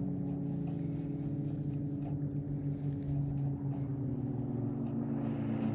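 Motorboat engine running steadily, a low drone that shifts slightly in pitch about four seconds in.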